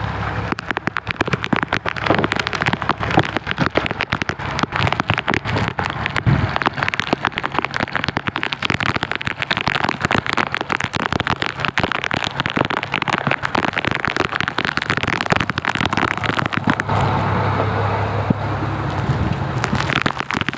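Heavy rain falling, a dense run of close drop strikes over a steady wash, with a low steady hum underneath that grows stronger near the end.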